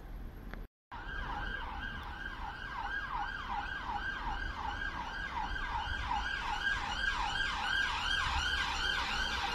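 Emergency vehicle siren on its fast yelp setting, a quick falling wail repeating about three times a second and growing slowly louder.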